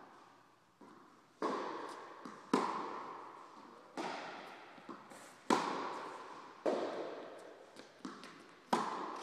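Tennis balls struck by rackets back and forth in a rally, with the ball bouncing on the hard court between hits: a sharp pop about every second, each ringing out in the echo of a large indoor hall.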